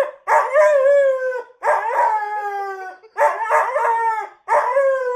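Dalmatian howling: four long howls in a row, each wavering at first and then falling in pitch.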